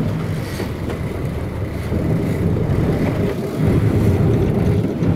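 Boat engine running with a steady low drone that grows louder about three and a half seconds in.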